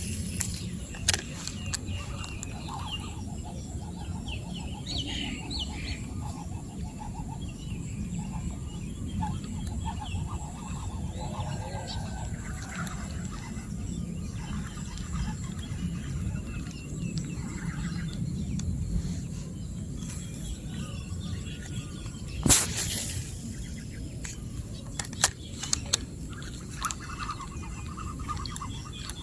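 Rural outdoor ambience: faint bird calls over a steady low rumble, with a few sharp knocks, the loudest about two-thirds of the way through.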